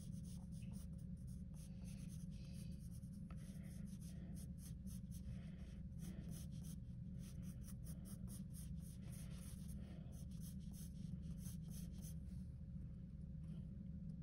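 A pen or pencil scratching across paper in many quick drawing strokes, over a steady low hum.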